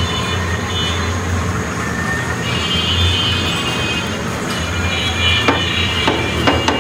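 Steady rumble of a gas stove burner heating a griddle, with a couple of light clicks of a steel spatula against the pan near the end.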